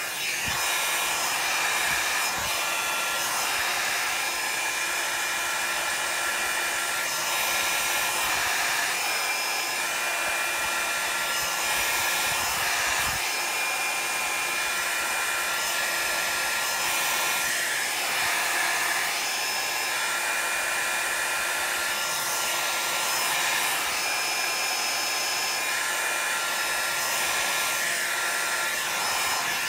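Hand-held hair dryer running steadily, blowing air across wet alcohol ink to push and dry it, with a faint motor whine under the rush of air.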